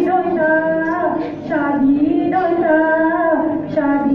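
A single voice singing a song, holding long notes and sliding between pitches.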